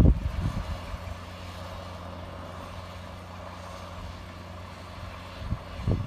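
John Deere 7700's six-cylinder diesel engine running steadily under load while pulling a seven-furrow reversible plough, a low even drone. Wind buffets the microphone at the start and again near the end.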